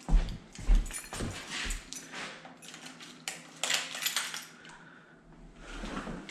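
A set of keys jangling and clicking as it is picked up and handled, with a few knocks among them.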